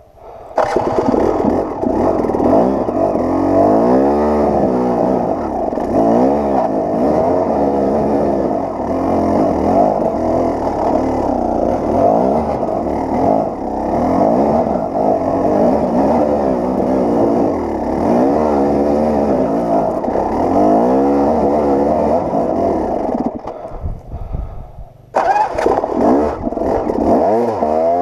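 KTM 300 XC-W two-stroke dirt bike engine pulling up a steep, rocky climb, its revs rising and falling again and again as the rider works the throttle. The sound drops away suddenly about three seconds before the end, then comes straight back.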